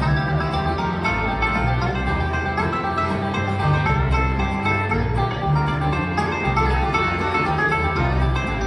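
Live bluegrass band playing: banjo, acoustic guitar, mandolin and fiddle picking over an upright bass line.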